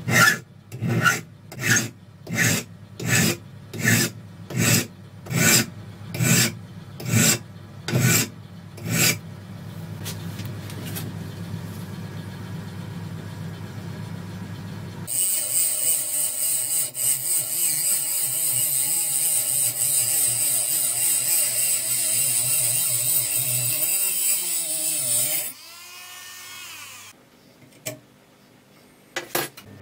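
Hand file rasping across a steel knife blade held in a vice, in even strokes a little more than one a second for about nine seconds. After a low steady hum, a loud steady hiss starts about halfway, lasts about ten seconds and stops suddenly.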